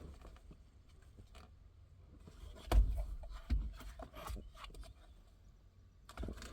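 Scattered knocks, clicks and rubbing from hands and parts being handled at close range, with a louder thump a little under three seconds in and another soon after.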